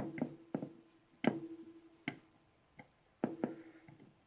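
Irregular sharp clicks and taps of small metal parts and tools being handled while the grip panels and their small screws are fitted back onto a Norinco NP34 9mm pistol frame, several with a brief ring after them.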